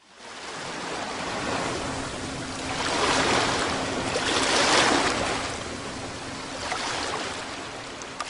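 A rushing noise that swells and fades, loudest about three and five seconds in, with a faint steady hum beneath.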